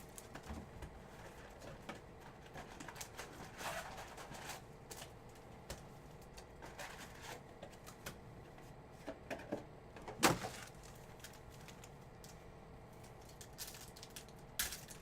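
Trading-card box and packs being handled and opened: scattered rustles and light taps of cardboard and packaging, with one sharp snap about ten seconds in.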